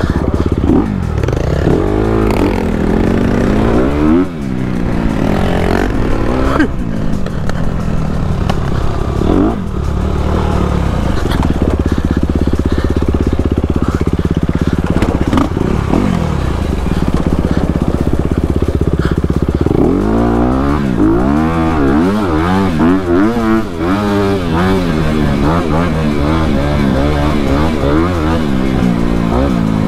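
Honda CRF250RX dirt bike's single-cylinder four-stroke engine revving up and down under hard riding, its pitch rising and falling with throttle and gear changes. It holds a steadier pitch for several seconds near the middle, then swings quickly up and down with on-off throttle in the second half.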